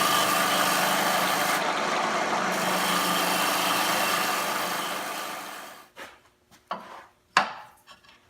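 Wood lathe running with a turning tool cutting a walnut bowl: a steady scraping hiss over the motor's hum. About five seconds in, the sound fades away as the lathe winds down, followed by three short knocks.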